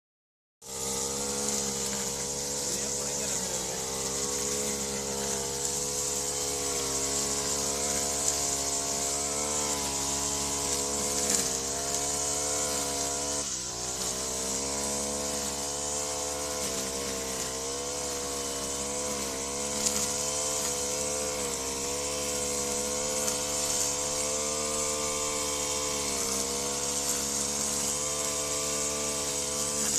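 Honda backpack brushcutter's four-stroke engine running at cutting speed as it mows grass. Its pitch wavers up and down as the throttle is eased and opened, with a short dip about halfway through.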